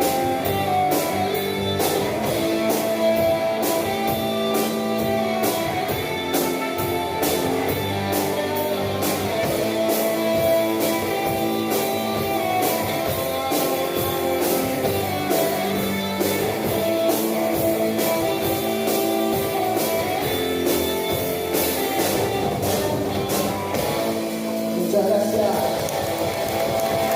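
Rock band playing live: electric guitar over a drum kit, with cymbal strokes keeping a steady beat.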